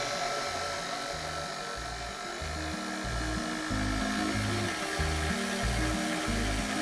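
A KitchenAid Classic Plus stand mixer running steadily on low, its dough hook turning flour in a steel bowl. Background music with a bass line plays over it.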